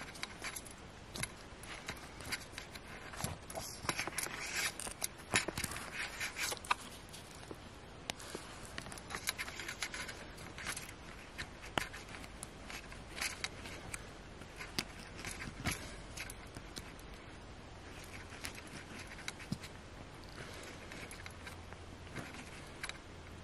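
A small hand tool scraping and picking at a wetted toy dig-kit rock, breaking off its crust in gritty scratches and irregular clicks that come thickest in the first half.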